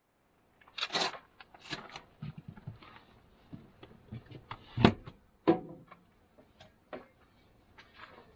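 Things being handled at a camper trailer's kitchen cupboard: scattered clicks, knocks and rustling as a cupboard door is worked and a glass bottle is taken out. The loudest knock comes about five seconds in, with another just after it.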